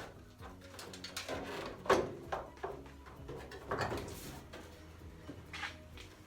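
Clunks and scraping of metal hood-hinge parts being slid together and fitted, the loudest knocks about two seconds and four seconds in, over quiet background music.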